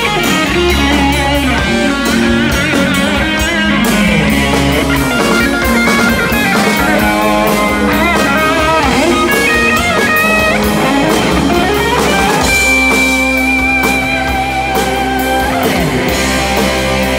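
Live rock band playing loudly: an electric guitar lead of quick melodic runs, with one long held high note about two-thirds of the way through, over a drum kit and bass.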